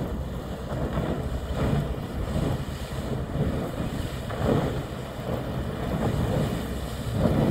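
Tugboat engine running as its bow breaks through harbor ice, with water and broken ice churning at the bow. Wind buffets the microphone in uneven gusts.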